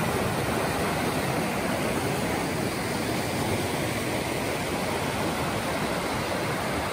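Fast creek rushing over rocks in whitewater rapids: a steady, unbroken rush of water.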